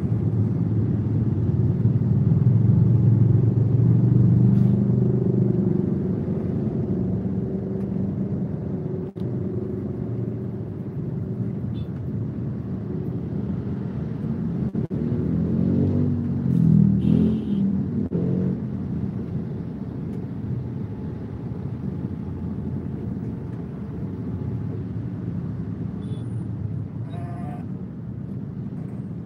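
Road traffic heard from inside a car creeping through a jam: a steady low engine rumble, loudest in the first few seconds. Around the middle an engine rises and falls in pitch.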